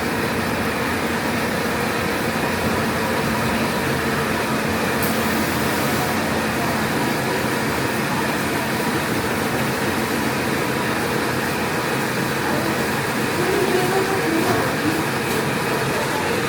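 ATR-320B automatic turret rewinder running in production: a steady mechanical whir with a faint hum.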